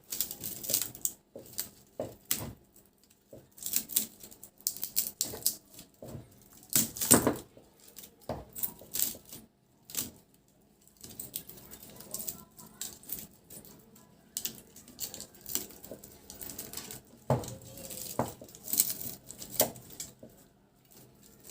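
Irregular clicks, taps and rustles of hands and metal tools working on the stator winding of an opened electric pump motor, with short pauses between bursts.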